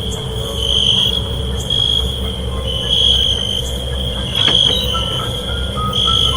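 Horror sound-effect ambience: a low rumbling drone with a steady hum, and a high, shrill tone pulsing about once a second. Near the end, faint higher tones step upward.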